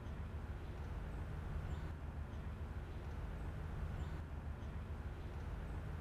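Outdoor park ambience: a steady low rumble with faint, high bird chirps about once a second.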